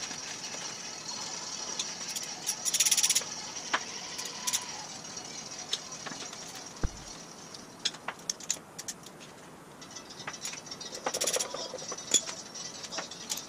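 Hand tools and loose metal parts clicking and clinking against the cast-iron block and crankshaft of a Ford flathead V8 as its connecting-rod caps and bottom end are taken apart. Irregular sharp ticks, with short clattery runs about three seconds in and again near eleven seconds.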